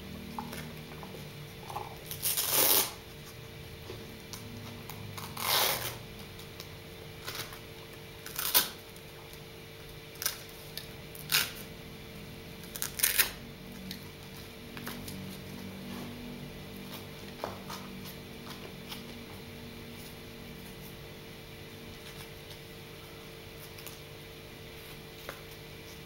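Velcro straps on a dog's shoes being pulled apart: six or seven short tearing rips in the first half, the first two the longest, then only faint handling noise.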